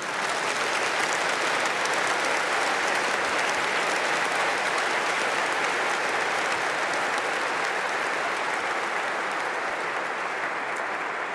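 A large congregation applauding: a sustained, dense clapping that swells up quickly at the start, holds steady and eases off slightly near the end.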